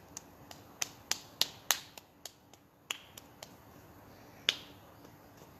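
Open hand patting and slapping a bare upper arm in a self-massage tapping exercise: a quick run of sharp skin smacks, about three a second, then a few more spaced out, the loudest one about four and a half seconds in.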